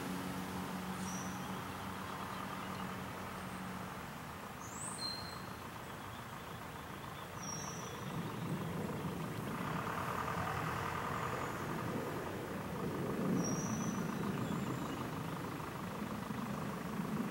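Steady motor-vehicle engine noise, with a low steady hum that stops about four seconds in, and a few brief high bird chirps. A rapid ticking chatter rises from about ten seconds in.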